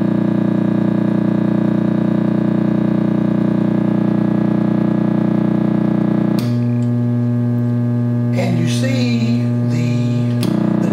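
Loudspeaker hooked to the secondary of a tube output transformer, buzzing loudly and steadily as the Tektronix 570 curve tracer sweeps the tube. The buzz has many overtones; its tone changes about six seconds in and changes back near the end.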